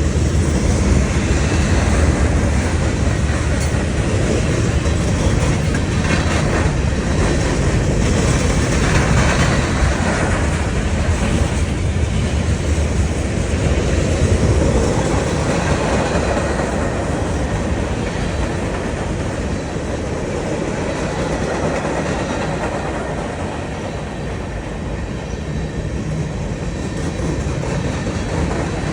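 Freight cars of a CSX manifest train rolling past, a steady loud rumble of steel wheels on the rails that eases a little in the second half.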